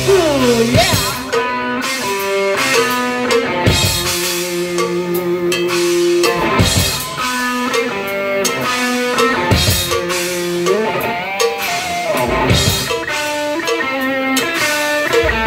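Live rock band playing: distorted electric guitars and a drum kit, with a lead guitar line of held notes that bend in pitch.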